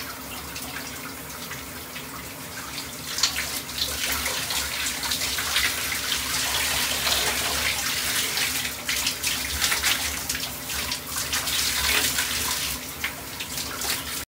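Shower water running and splashing, growing louder and more spattery about three to four seconds in.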